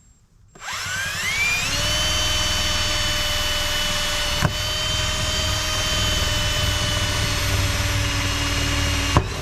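Corded electric drill spinning up with a rising whine about half a second in, then running at steady speed as it cuts into the camper wall, with a sharp click about four and a half seconds in and another near the end.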